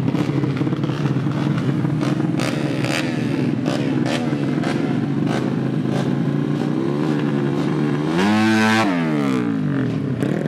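Drag-race motorcycle engine running at a fast, uneven idle, then revved sharply a little after eight seconds in, held high for about half a second, and let drop back down.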